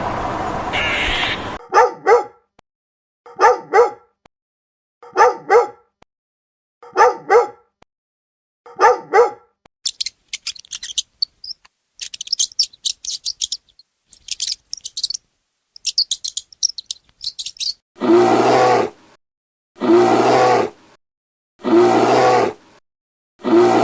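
A run of recorded animal calls. A dog barks in pairs, two barks about every second and a half. Then comes high rapid chirping, then a string of one-second calls repeated about every two seconds.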